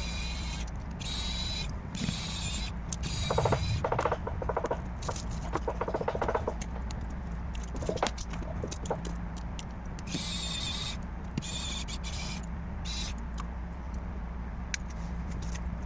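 Creaking, rasping and clicking of small-scale work on a smartphone's body, with a stretch of rapid fine creaking a few seconds in, over a steady low hum.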